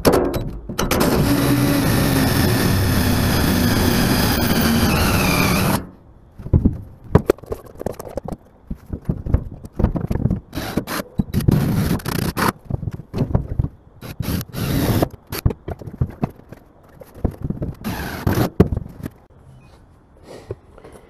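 Cordless drill running steadily for about five seconds as it bores a hole through the pickup's bed floor, its pitch rising just before it stops. Then scattered knocks and clatter from handling the drill and parts.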